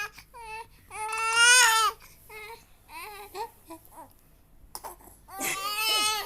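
A baby crying to be picked up: a long high wail about a second in, short fussing whimpers after it, and another long wail near the end.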